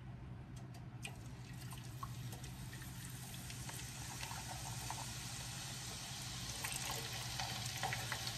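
Hot oil in a cast iron skillet sizzling as raw homemade French fries are dropped in by hand, the hiss building and growing louder as more fries go in.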